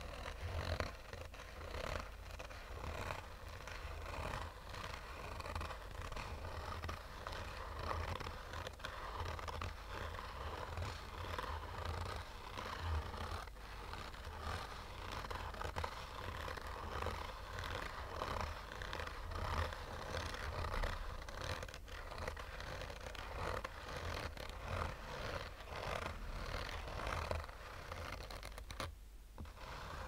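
Fingernails scratching slowly over the textured woven fabric cover of a hard-shell sunglasses case: a continuous run of short scratchy strokes, with a brief pause about a second before the end.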